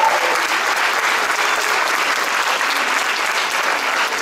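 Audience applause: many people clapping together, steady throughout.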